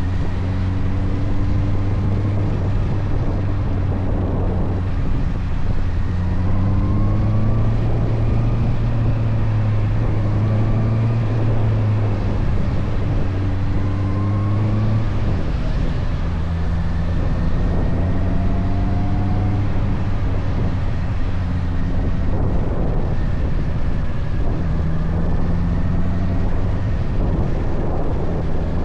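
Motorcycle engine running under way, its note rising and falling with throttle and dropping about fifteen seconds in, over road and wind noise.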